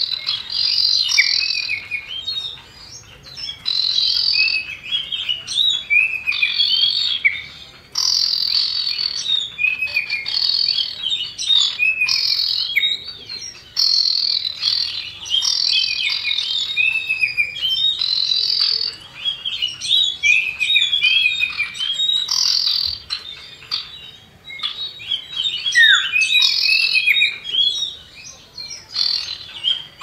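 Common iora (cipoh) calling: rapid high chirps and short downslurred whistles in phrases of a second or two, repeated with brief pauses.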